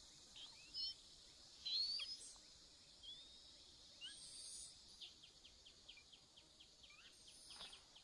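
Faint, thin, high-pitched begging cheeps of Chinese hwamei nestlings, in short rising chirps during the first half, then a quick run of short cheeps, about four a second, near the end.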